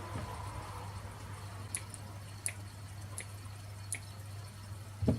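Four light, sharp clicks about three-quarters of a second apart over a steady low hum, then a dull thump near the end.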